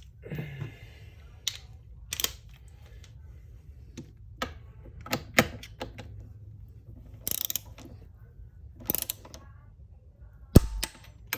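Click-type torque wrench ratcheting in short strokes as it tightens a transmission mount bolt. Near the end comes one sharp click: the wrench breaking at its 220 inch-pound setting.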